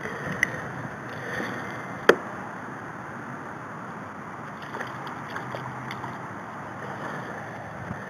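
Water sloshing and lapping at a kayak while a caught bass is lowered and released into the river, with one sharp slap about two seconds in and a few small clicks later.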